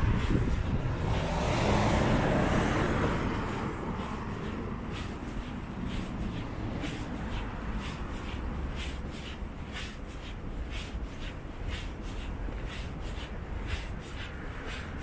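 Street traffic: a vehicle passes in the first few seconds, swelling and fading. After that a steady traffic rumble carries on, with the walker's footsteps ticking about twice a second.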